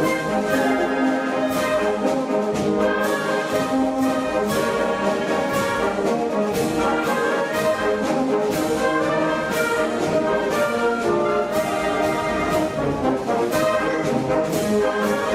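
Orchestral music led by brass, with sustained chords and a steady percussive beat.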